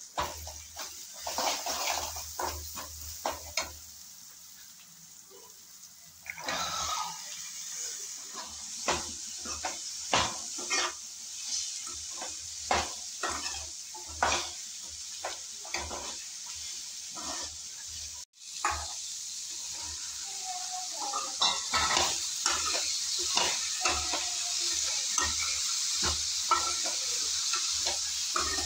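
Metal ladle stirring and scraping vegetables in a metal kadai, with repeated clinks against the pan, over frying food sizzling in hot oil. The sizzle gets much louder about six seconds in.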